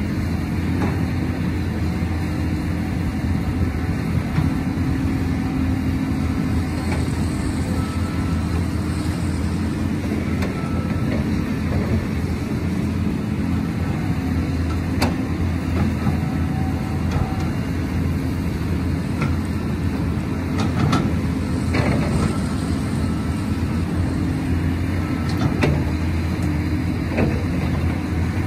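Caterpillar 320C excavator's diesel engine running steadily as it digs, with a few short clanks and knocks, the clearest about halfway through and more near the end.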